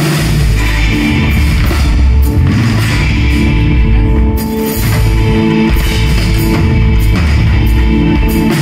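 Rock band playing live, with electric bass, electric guitar and a drum kit. Held guitar chords ring over the bass and a steady drum beat, with no vocals.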